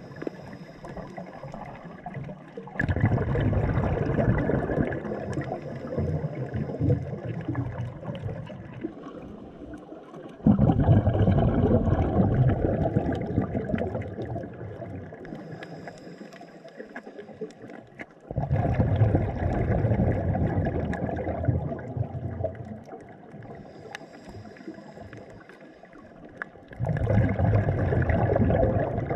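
Underwater breathing of a scuba diver: each exhalation through the regulator sends a rush of bubbles that starts abruptly and fades over several seconds, about every eight seconds, with a faint hiss of inhalation in between.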